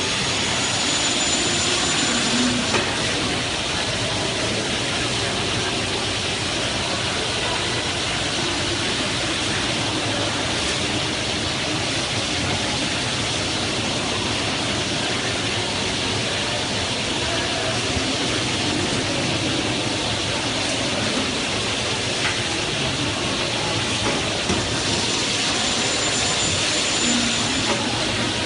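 Double-head aluminium and PVC cutting saw with 500 mm blades, running with a steady, loud machine noise. A faint high whine shows near the start and again near the end.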